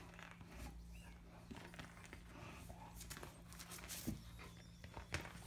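Akita puppy chewing and mouthing a ball, faint, with light panting and a few soft clicks and knocks about three, four and five seconds in.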